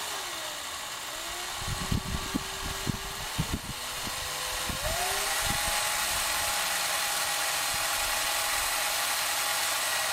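Ryobi cordless drill whining as it spins the freshly oiled speedometer mechanism of a 1969 VW Beetle through its cable input. The drill speeds up about halfway through, then stops abruptly. A string of sharp ticks comes in the first half.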